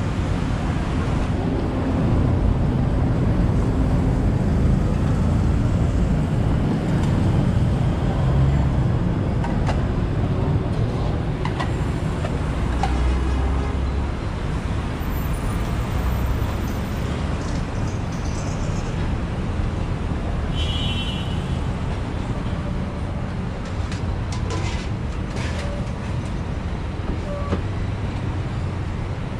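Steady city street traffic noise: vehicles running and passing, with a few scattered clicks and knocks.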